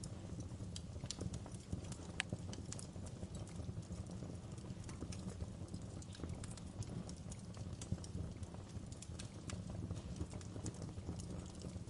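Wood fire crackling in a fireplace: irregular sharp snaps of burning logs over a low steady rumble of the flames.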